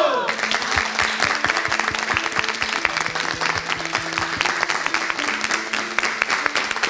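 A group of people clapping, starting a moment in, over background music with a simple melody.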